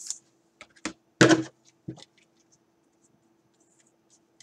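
Hands handling a trading card and a clear plastic top loader: a few light clicks, taps and rustles, with one louder knock about a second in.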